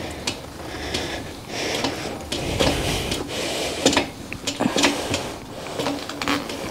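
Irregular clicks and clunks of metal parts being handled on a moped in a workshop, with the engine not running.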